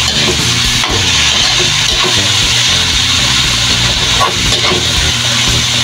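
Onions, tomatoes, garlic and smoked fish sautéing in oil in a wok, sizzling steadily while a metal spatula stirs and scrapes the pan now and then. Background music plays underneath.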